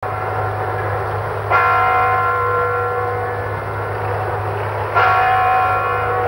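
A bell struck twice, about three and a half seconds apart, each stroke ringing on and slowly fading, over a steady low hum.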